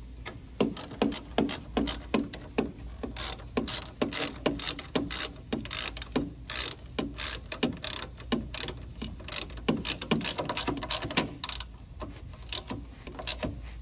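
Short socket ratchet clicking through quick back-and-forth strokes, about two to three clicks a second and thinning out near the end, as bolts at the radiator support are snugged down lightly rather than heavily torqued.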